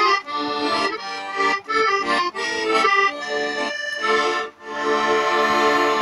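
Garmon, a Russian button accordion, playing a tune of quick-changing notes over chords. After a short break about four and a half seconds in, it holds one long final chord.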